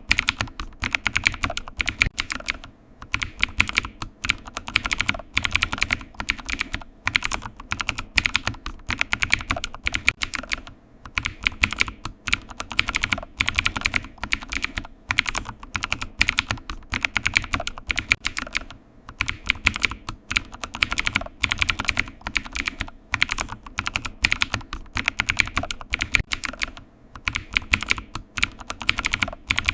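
Computer keyboard typing: rapid keystroke clicks in bursts of a few seconds, with brief pauses between them.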